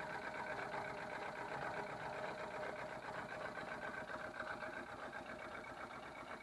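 1999 VW Polo 6N1 petrol engine idling with an extremely rough, uneven beat, typical of a misfire. The owner suspects the engine may be running on only three cylinders.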